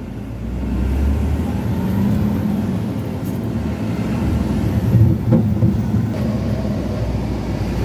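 A new truck's engine running as it is driven, heard from inside the cab; it grows louder in the first second, and a short knock comes about five seconds in.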